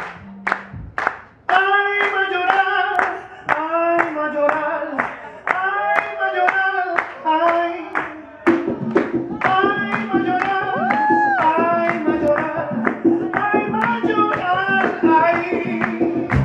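A man sings an Afro-Peruvian song over steady, even hand claps from the band. The voice comes in about a second and a half in, and the acoustic guitar and double bass join about eight seconds in.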